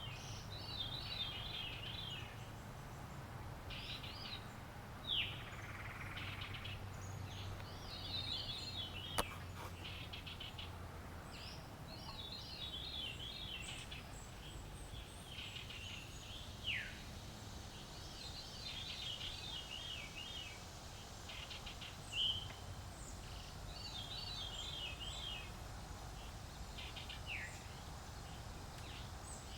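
Birdsong of unidentified species: a rapid, wavering high-pitched trill phrase repeated every five or six seconds, with four short, sharp downward-sliding calls in between that are the loudest sounds. A steady low rumble runs underneath.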